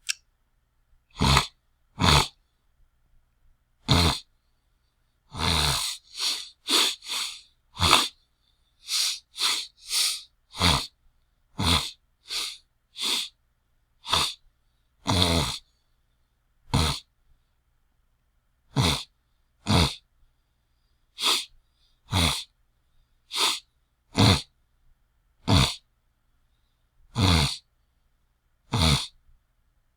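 A person scratching at an itchy throat: a string of short, harsh, raspy throat hacks, about two dozen. Some come in quick runs and others are spaced a second or so apart.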